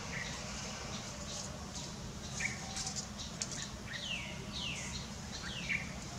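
Birds chirping in the background: a handful of short calls that sweep down in pitch, the clearest about four to six seconds in, over a steady low hum.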